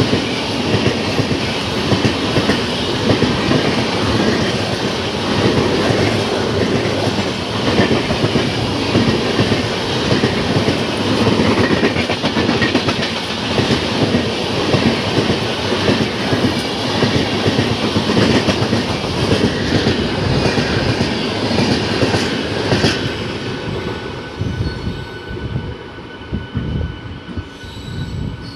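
Passenger coaches of an express train rushing past at speed, wheels clattering over the rail joints in a continuous loud rumble. The noise drops away about 23 seconds in as the last coach passes, leaving a few faint steady tones.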